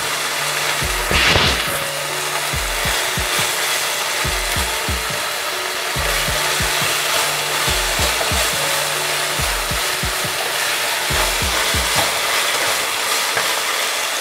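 Chicken strips and sauce sizzling in hot oil in a pan while a spatula stirs and scrapes them, with background music's low notes underneath.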